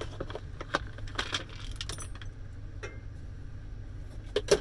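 Metal parts and hand tools clinking and rattling as the shredder is dismantled by hand: a run of light clicks and clinks in the first two seconds, then two sharper clanks near the end.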